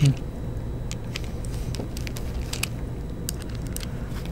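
Scattered faint clicks and scrapes of a screwdriver and small plastic parts, a 30 mm cooling fan and a 3D-printed fan shroud, being handled and fitted together, over a low steady hum.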